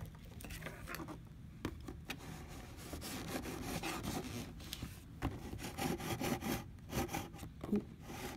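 A small cutting tool scraping and slicing along the sealed seam of a cardboard box: a continuous rasping rub with a few sharp clicks.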